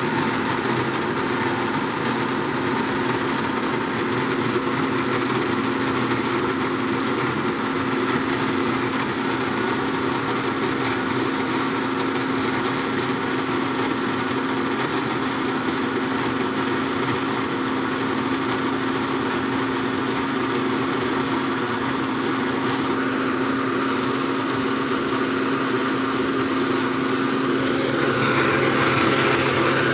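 Blendtec Classic 570 blender running a smoothie cycle, its motor whirring steadily as it blends, getting a little louder and changing pitch near the end.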